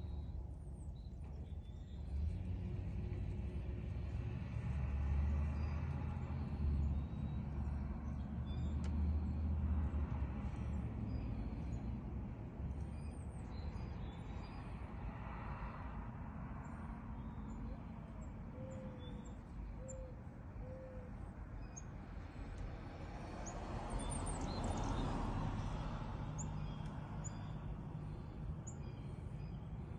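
Outdoor ambience: a steady low rumble of distant traffic that swells twice as vehicles pass, with small birds chirping briefly now and then.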